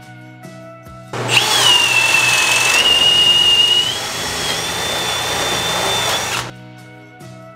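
Cordless drill driving a screw into a wooden stud: the motor starts about a second in, whines steadily with its pitch stepping up twice, and stops after about five seconds.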